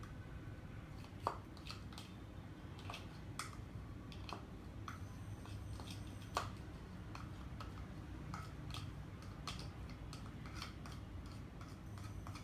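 Spatula scraping out a small bowl over a saucepan, making irregular light clicks and scrapes, over a faint steady low hum.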